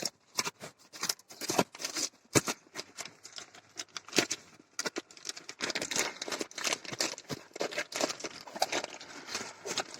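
Product packaging being opened by hand: crinkling and tearing with scattered sharp clicks and rustles, busier and more continuous in the second half.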